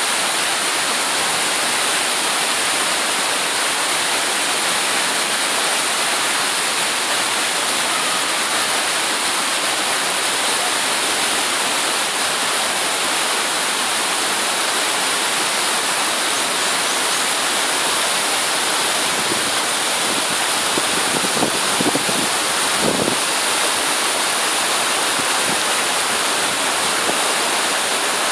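River water rushing steadily over a curved, stepped stone weir, a constant full cascade of falling water. A few brief low bumps come about twenty seconds in.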